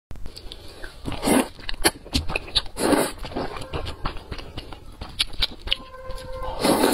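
Close-miked eating sounds: thick noodles in sauce being slurped, with wet chewing and lip smacks between. There are three longer slurps, about a second in, about three seconds in and near the end, with many short wet clicks between them.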